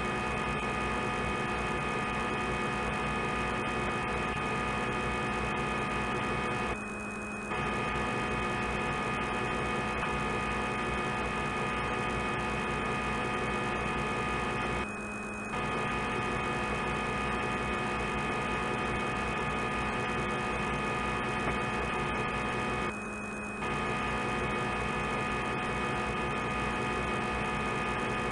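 CNC lathe simulator software's machining sound during a simulated turning cycle: a steady electric hum made of many fixed tones, dipping briefly about every eight seconds.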